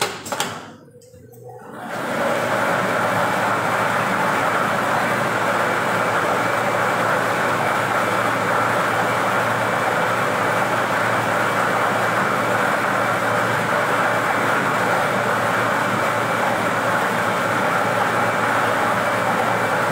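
Air-mix lottery ball machine running: its blower starts about two seconds in and then runs steadily and loudly, tumbling the numbered balls inside the clear acrylic drum. A short knock comes just before it starts.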